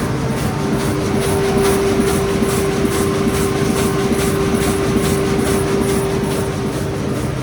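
Corrugated-board flexo printer slotter die cutter folder gluer line running at production speed: a loud, steady machine clatter with a steady hum and a regular high-pitched ticking about two to three times a second.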